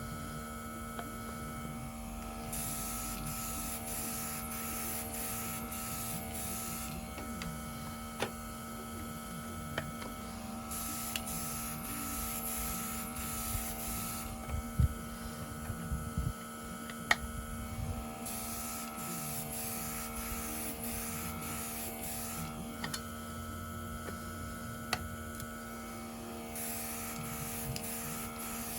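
Small nail-art airbrush compressor running with a steady hum, with four bursts of air hiss a few seconds long as the airbrush trigger is pressed to spray paint. A few light clicks and taps sound in between.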